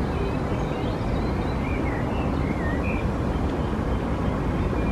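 Wind buffeting the microphone in a steady low rumble, with small birds chirping briefly a few times in the background.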